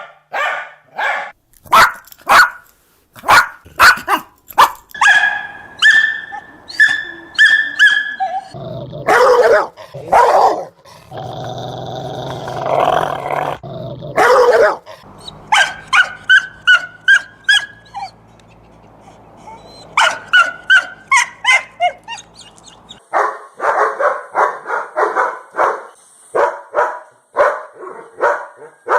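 Dogs barking in a string of separate recordings: single barks and higher-pitched yaps, turning to fast, rapid barking near the end.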